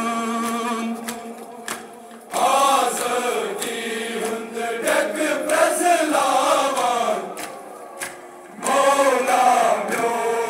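Men's voices chanting a Kashmiri noha, a Shia Muharram lament, in long sung phrases, with short breaks about two seconds in and about eight seconds in.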